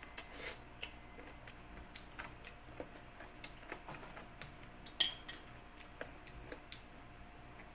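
Eating utensils clinking and tapping against a dish as rice is mixed with chicken and sauce: a string of light clicks, a few a second, with one sharper clink about five seconds in.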